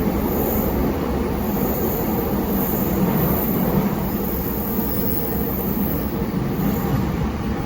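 JR East E233-7000 series electric train running steadily at speed, heard inside the car: an even rumble of wheels and running gear on the track.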